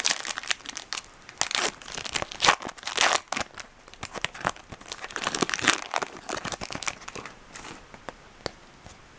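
Foil wrapper of a trading-card pack being torn open and crumpled: a run of sharp crackling rustles that thins out near the end.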